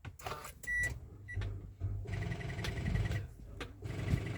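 A 2024 Mitsubishi Xpander's push-button start attempt: a short electronic beep, then from about two seconds in a rapid, even ticking over a low hum while the engine fails to crank or fire. This is the no-start fault, which the mechanic goes on to trace to the battery.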